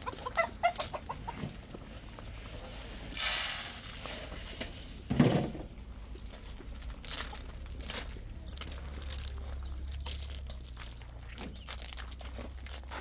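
Chickens clucking, with a run of quick clucks at the start and a louder, harsher call about three seconds in. A brief, louder noise comes about five seconds in.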